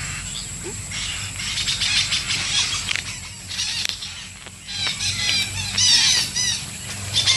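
Long-tailed parakeets calling, a run of short, shrill repeated notes that is loudest about five to six and a half seconds in.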